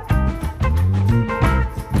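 Background music with a steady beat: a bass line with guitar, in a swing-like style.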